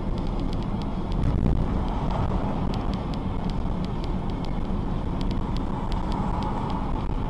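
A moving car's engine and tyre noise picked up by a dashboard camera inside the cabin: a steady low rumble, with scattered faint ticks.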